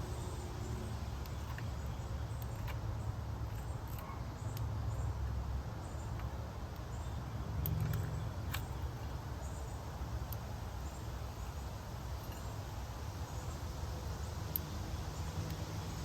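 Backyard outdoor ambience: a steady low rumble with scattered faint clicks and a few short, high, faint chirps.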